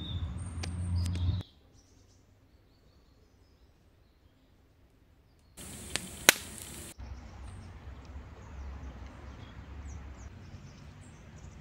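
Campfire crackling over a low rumble, cut off after about a second and a half, then a few seconds of near silence. Then a brief swishing sound effect with two sharp cracks, followed by birds chirping over the steady rush of a river.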